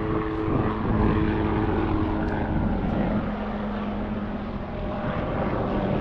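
Low-flying propeller aeroplane passing over, a steady engine drone whose pitch drops about a second in as it goes by.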